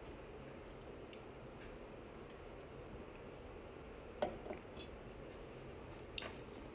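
Quiet room tone with a steady low hum from a running ceiling fan. Two short clicks, about four and six seconds in, are the loudest sounds.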